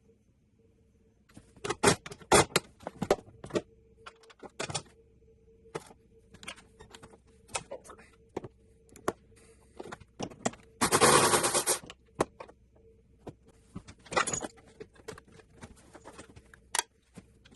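Hand work on vehicle wiring: irregular clicks, taps and knocks of wires, connectors and tools being handled, with a rasping noise lasting about a second near the middle. A faint steady hum runs underneath.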